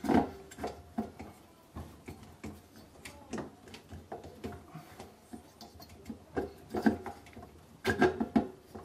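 Lawnmower engine flywheel being wriggled down onto the crankshaft over a new keyway, giving irregular light metal clicks and knocks, with a cluster of louder knocks near the end. The flywheel keeps catching on the pull of the ignition coil's magnets.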